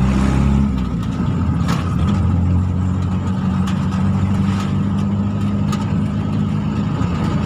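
A vehicle's engine running steadily while driving along a road, heard from inside the open cab. The engine note drops about a second in, then holds steady, with a few faint clicks over it.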